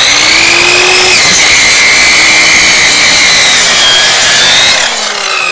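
Electric chop saw switched on and running at full speed with a high whine while its blade cuts through a dry-aged bone-in New York strip, bone included. Near the end the saw is switched off and the whine falls away as the blade spins down.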